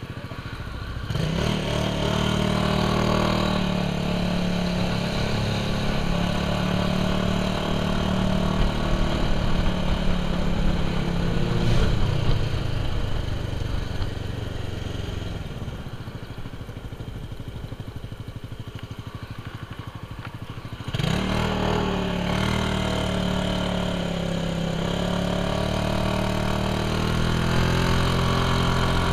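Suzuki Burgman maxi-scooter engine running under way. It picks up about a second in and runs steadily, then eases off near the middle as the throttle closes. About two-thirds of the way through it picks up sharply again.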